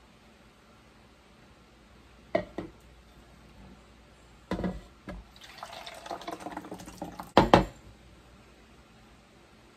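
Cassava batter pouring from a glass measuring jug into a plastic pitcher while a spatula scrapes it out, lasting about two seconds. Hard knocks of the containers come before it, and the loudest pair comes right after the pour ends.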